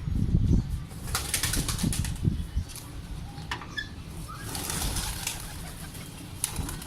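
Shirazi pigeon's wings flapping in flight, a quick clatter of wingbeats about a second in and another flurry near the middle.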